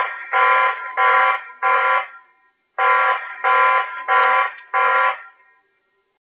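Security camera's electronic warning alarm beeping through its speaker: two runs of four loud buzzy beeps, each about half a second long, with a short pause between the runs. It stops shortly before the end.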